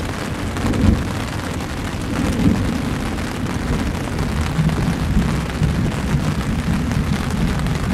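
Strong storm wind gusting against the microphone: a loud, low rushing rumble that swells and eases in gusts.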